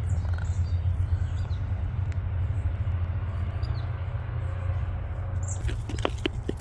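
Steady low engine and road rumble inside a moving vehicle's cabin. A few short clicks and knocks come near the end.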